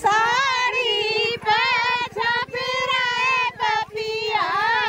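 Women singing a Hindi folk song in high, wavering voices, with short breaks between phrases. It is the kind of traditional birth song sung at a kuan pujan.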